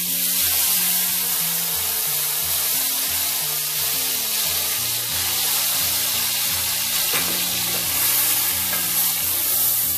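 Loud, steady sizzling of yogurt-marinated chicken pieces dropped into hot oil and ghee with whole spices, the wet marinade spitting and hissing as it hits the hot fat and while the pieces are stirred with a wooden spoon.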